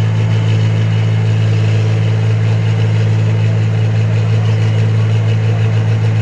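New Holland combine harvester's diesel engine running steadily at a constant pitch, a strong low hum with no change in speed.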